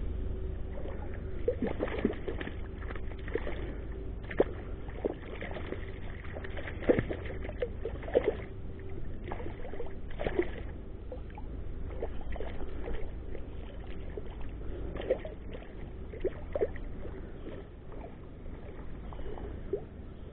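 River water sloshing and splashing in irregular bursts close by, over a steady low rumble.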